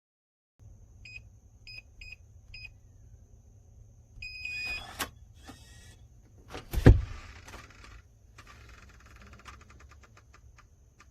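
SMONET smart lock keypad beeping four times as a code is entered, then one longer beep. A loud thump about seven seconds in, followed by electric whirring with rapid ticking from the lock's motor.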